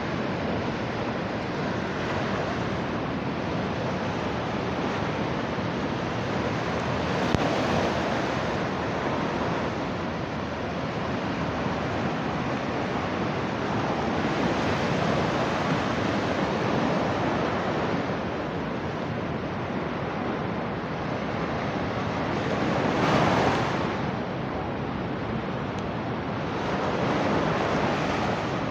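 Sea surf breaking and washing up a beach in a steady roar that swells and eases as each wave comes in, with the biggest surge about three quarters of the way through.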